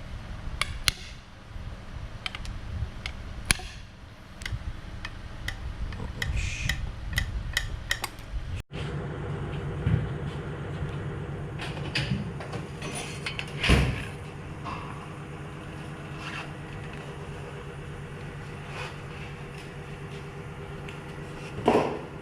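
Several sharp clicks and taps over a low rumble, then after an abrupt break a car engine running steadily, with a few louder thumps about ten, fourteen and twenty-two seconds in.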